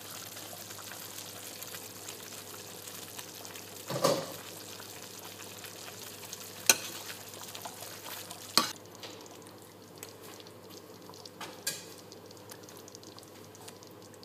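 Thick chicken curry gravy bubbling in a pot on the stove: a steady sizzling, crackling hiss with a few sharp pops, the loudest about four seconds in.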